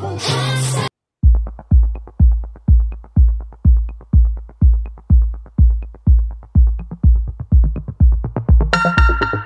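Background electronic music: after the intro music cuts off about a second in, a steady drum-machine kick beat runs at about three beats a second, and a synthesizer chord comes in near the end.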